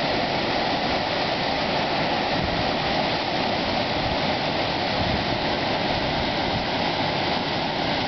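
Waterfall cascading over rock ledges into a pool, a steady, even rushing of white water.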